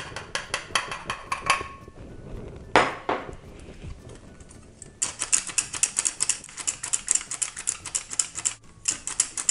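Hand-operated stainless steel flour sifter being worked over a metal mixing bowl: rapid, even clicking several times a second as flour is sifted through. It stops briefly with a short rustle about three seconds in, then clicks on again from about five seconds in.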